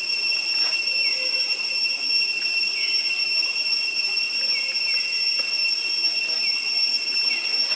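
Chorus of forest insects: a steady, high-pitched drone held at one pitch throughout.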